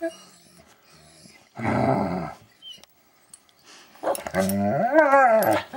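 Dog vocalising: a short gruff growl about a second and a half in, then a long wavering howl-like 'singing' call near the end that rises and falls in pitch.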